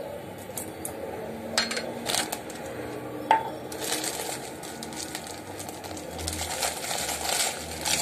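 Plastic packet crinkling and rustling as it is handled and its twisted neck pulled open, with a few sharp clicks before the rustling grows denser about four seconds in.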